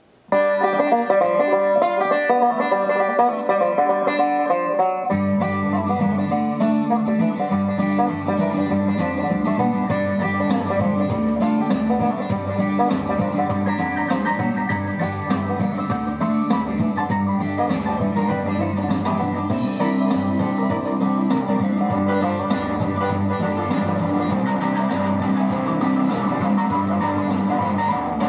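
Music with plucked guitar played through a TDA2030A mono amplifier board into a single 6-ohm Sony speaker. The bass comes in about five seconds in.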